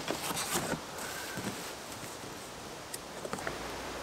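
Stiff cardboard panels of a Kartent cardboard tent being bent and pushed into place, rustling and scraping, mixed with footsteps shifting in dry fallen leaves. The handling noises come in quick clusters in the first second and again near the end.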